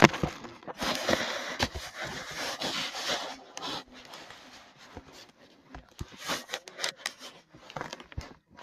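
Small rocks being poured into a round metal tin: a knock at the start, a dense rattling clatter for about two seconds, then scattered clicks and rubbing.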